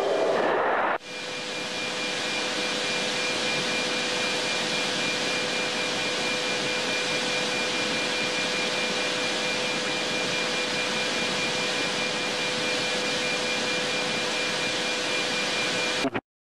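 Steady jet cockpit noise on the aircraft's intercom recording: an even hiss with a low steady hum and a fainter high whine. It settles in about a second in and cuts off suddenly near the end.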